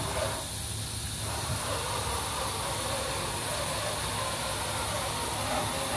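Milltronics RH20 CNC vertical mill with its Z-axis servo drive jogging the head down, heard as a steady, even hiss-like machine noise that fills out slightly about a second in.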